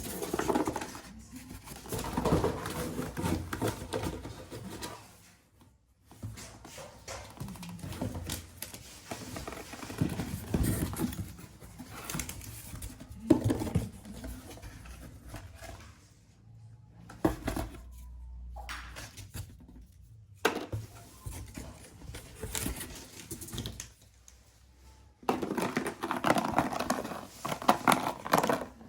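Plastic snack packets rustling and crinkling as they are handled and torn open, in uneven bursts with a few short pauses.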